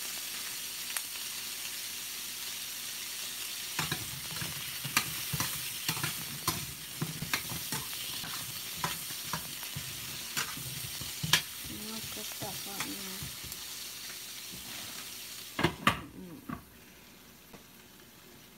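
Squash and onion sizzling as they fry in a stainless steel pan, with a spoon scraping and clinking against the pan as they are stirred. Near the end a glass lid clatters onto the pan and the sizzle goes quieter.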